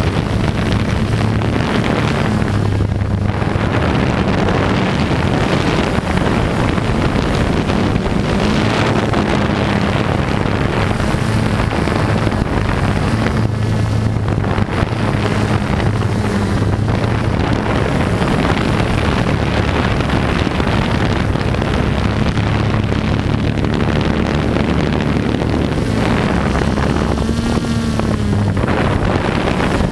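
Quadcopter's electric motors and propellers whirring in flight, heard close up from the onboard camera: a steady hum whose pitch shifts slightly now and then, with wind noise on the microphone.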